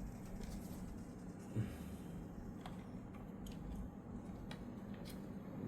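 Faint scattered clicks and a soft knock about a second and a half in, over a steady low hum: small handling noises of computer parts being fitted.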